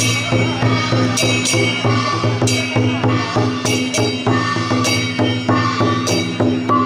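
Chinese drum-and-cymbal percussion of the kind that accompanies a dragon dance, playing a steady beat. Ringing crashes come about once a second over a sustained low tone.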